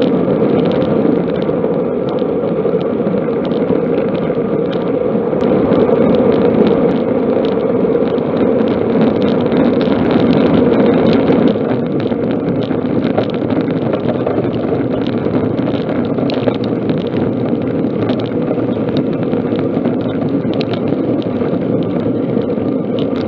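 Steady rush of road and wind noise from a road bike riding at speed, picked up by a camera on the bike, with a van driving close alongside, the sound a little louder in the middle.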